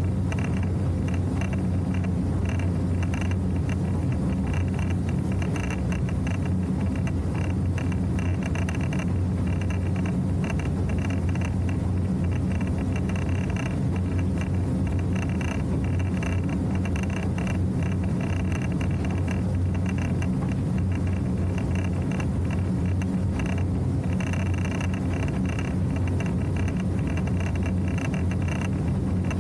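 Motorboat running at cruising speed: a steady engine drone with water rushing along the hull.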